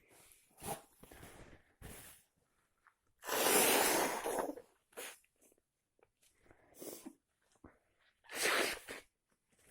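A person sneezing: one long, loud sneeze about three seconds in and another near the end, with smaller breathy sounds between.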